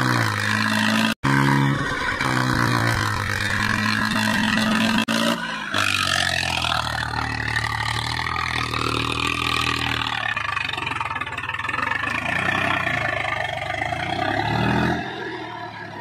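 Swaraj diesel tractor engine running hard under load as the tractor is held up on its rear wheels, its note shifting and revving up and down. The sound cuts out briefly about a second in, and the engine rises then falls in pitch near the end.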